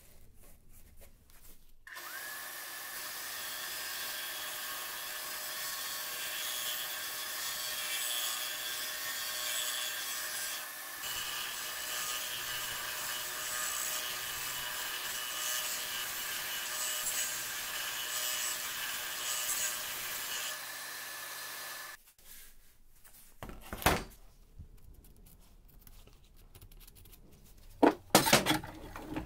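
A steel plate cut from a circular saw blade ground against a spinning abrasive disc, with a steady grinding noise and motor whine. It stops suddenly about two-thirds of the way through. A single sharp knock follows, then a quick cluster of loud knocks near the end.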